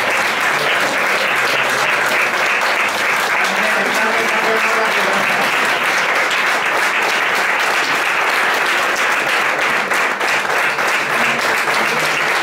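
Small audience applauding steadily, many hands clapping at once.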